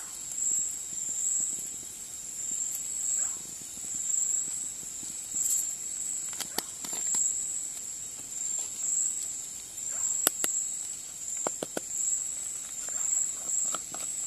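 Night insects trilling in a steady high-pitched drone that swells and fades about once a second. A few sharp clicks from spice containers being handled come through in the second half.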